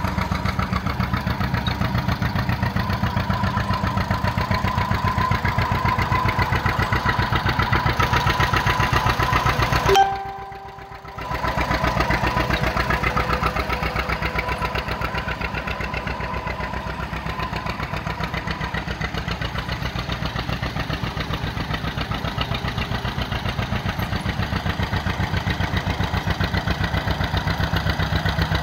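1958 John Deere 620 tractor's two-cylinder engine running at a steady pace with an even, pulsing beat as the tractor drives. About ten seconds in, the sound drops out sharply for about a second and then returns.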